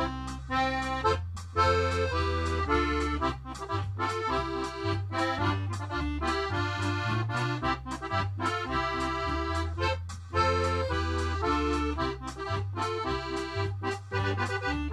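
Background music: an instrumental tune with a moving bass line and a steady beat.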